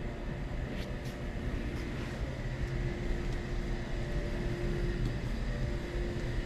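Steady low rumble and hum of a subway station platform, with a faint held tone over it and a few light ticks in the first second.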